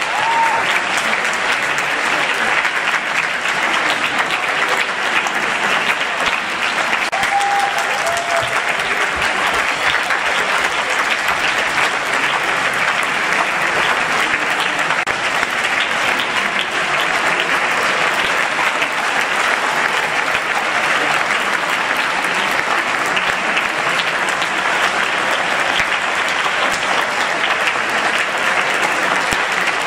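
Audience applauding, many hands clapping at once in a dense, steady stream.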